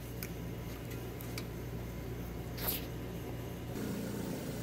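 Low steady hum with a few faint clicks of a hex key and small metal tools being handled, and one sharper click a little past the middle.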